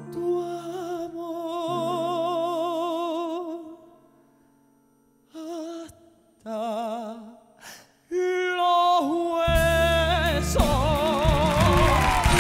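A male singer holding long, drawn-out notes with a wide vibrato over a soft sustained orchestral chord, breaking off into a near-silent pause about four seconds in, then a few short phrases and another long held note. About nine and a half seconds in, the full orchestra comes in loudly under him.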